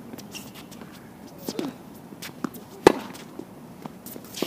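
Tennis rally on a hard court: a few sharp pops of the ball off racket strings and the court, the loudest about three seconds in.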